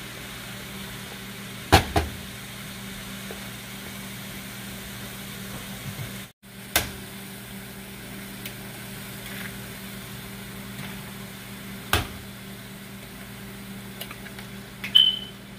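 Eggs being cracked against a frying pan and dropped into the rice, heard as a few sharp taps: a quick pair about two seconds in, one near 12 seconds in, and others later. A steady low electrical hum runs underneath.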